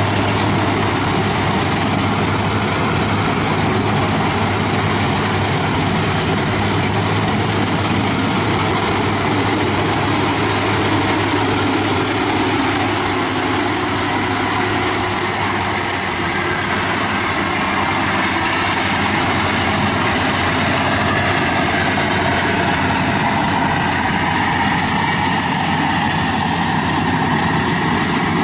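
FMWorld WD 102pro rice combine harvester running steadily under load as it cuts and threshes rice, its engine and threshing mechanism making a loud, even hum.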